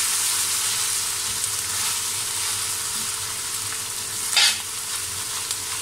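Chopped onions and ginger-garlic paste sizzling in hot oil in a metal karahi, stirred with a spoon, with a steady hiss. About four and a half seconds in the spoon clatters once, louder, against the pan.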